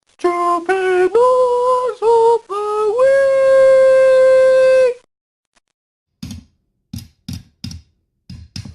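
A voice humming a wordless six-note tune, the last note held for about two seconds, followed after a pause by about six short knocks.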